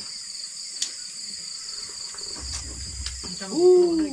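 Steady high chirring of night insects. A man makes a short voiced sound near the end.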